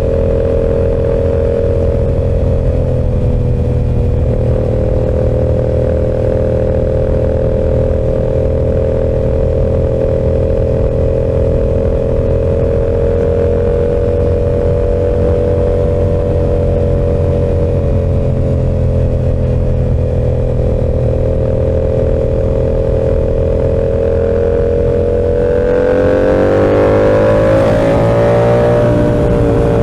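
Yamaha R7's parallel-twin engine through an SC-Project exhaust, running at steady cruising revs under way. About 26 seconds in the engine note rises as the bike accelerates, then eases off near the end.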